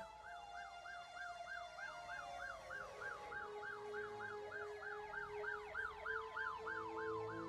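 Emergency-vehicle siren in a fast yelp, its pitch rising and falling about four times a second, over sustained musical tones.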